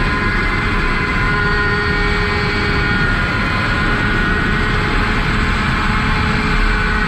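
Tomos 50 cc two-stroke racing moped engine running flat out at a steady high pitch, with wind rushing over the onboard microphone.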